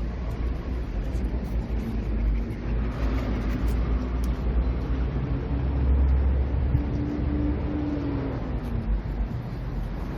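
Road traffic going by: a steady low rumble of passing vehicles, with one engine's hum rising and fading about seven to nine seconds in.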